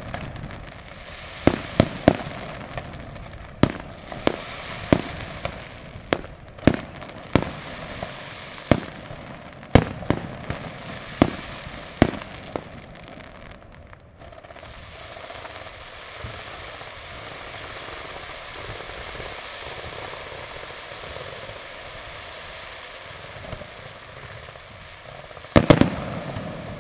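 Fireworks display: aerial shells bursting with sharp bangs every half-second to second or so for the first half. Then comes about ten seconds of steady noise with no bangs, and a quick cluster of loud bangs near the end.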